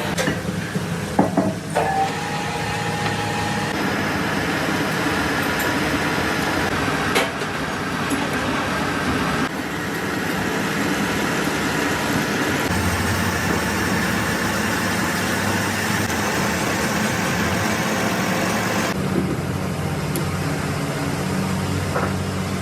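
Metal lathe running with a steady motor hum under a hiss of machining noise, the sound changing abruptly a few times.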